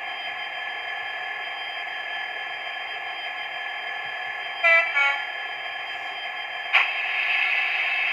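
Model Class 66 diesel locomotive's sound decoder playing through its small speaker: the diesel engine runs steadily, gives two short horn toots about halfway through, then the engine sound gets louder after a click near the end as the loco is driven off.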